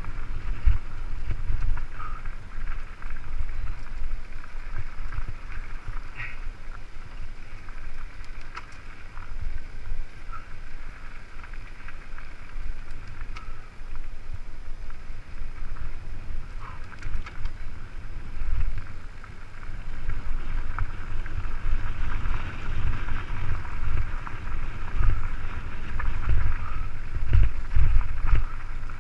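Mountain bike rolling fast down a rough dirt singletrack: wind buffeting on the camera microphone and irregular low thumps from the bumps, over a steady higher rushing of tyres on dirt and gravel.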